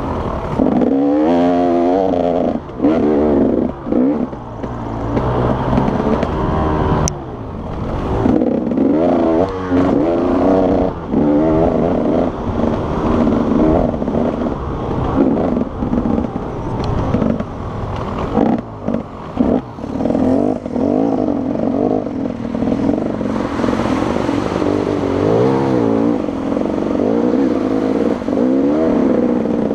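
Enduro motorcycle engine heard from on board while riding, its revs rising and falling constantly, with several short dips where the throttle is let off.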